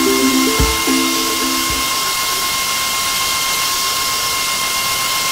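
Harper 'Un dîner presque parfait' stand mixer running at third speed, a steady motor whine with a whirring hiss as it creams butter and sugar. Background music plays over the first two seconds.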